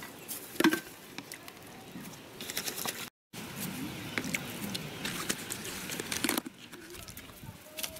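Plastic containers (a cup, a jerrycan and a chick drinker) clicking, knocking and rustling as they are handled and set down on dry grass, with a run of sharp clicks. The sound cuts out completely for a moment about three seconds in.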